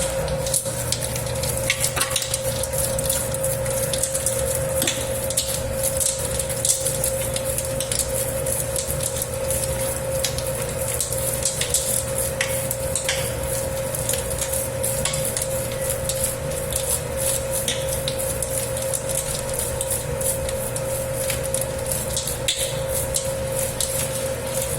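Dough-kneading machine working a 10 kg batch of pizza dough: a steady motor hum with a constant whine, over which the dough and bowl give irregular soft clicks and knocks.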